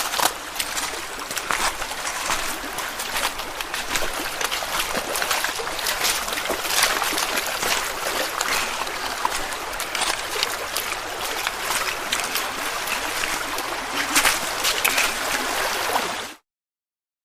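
Footsteps wading through shallow water, a continuous run of splashes and sloshing over a steady watery rush, stopping suddenly near the end.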